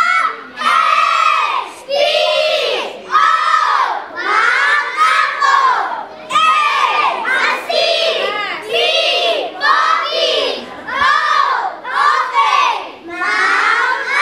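A group of young boys shouting a scout patrol cheer in unison, in short rhythmic chanted phrases of about one a second.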